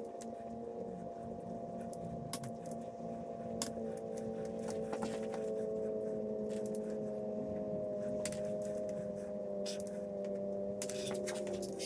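A torque wrench ratcheting and clicking while bolts on a GM 5.3 LS V8 block are tightened to 45 ft-lb: a scattering of short, sharp metallic clicks. A steady hum runs underneath.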